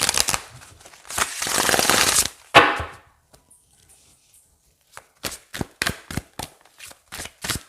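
Tarot cards being handled: a riffling shuffle of the deck about a second in, then after a short pause a quick series of sharp card snaps and taps.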